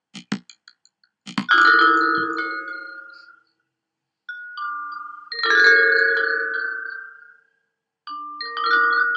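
A few quick, short ticks, then three clusters of struck, bell-like tuned percussion tones, about three seconds apart, each chord ringing out and fading over a couple of seconds.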